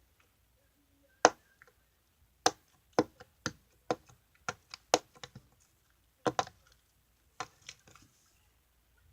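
Blue fluffy slime being poked with fingers, giving an irregular string of sharp clicks and pops, several close together in the middle.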